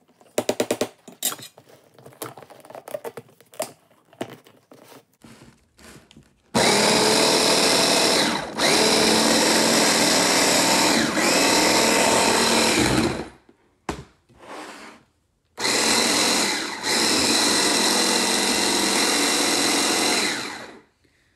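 Hand blender driving a mini-chopper bowl, puréeing a wet herb-and-garlic marinade: some scattered clicks at first, then the motor runs steadily for about seven seconds, stops, gives a short pulse, and runs again for about five seconds.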